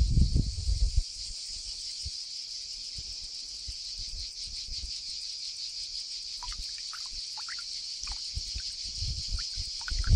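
Steady high-pitched insect chorus. A low rumble dies away about a second in, and short faint chirps come and go in the second half.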